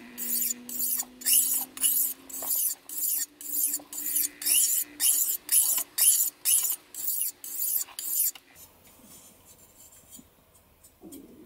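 Steel kitchen-knife blade stroked back and forth on a hand-held sharpening stone, a hissing scrape at about two strokes a second, honing an extremely dull edge; the strokes stop about three seconds before the end.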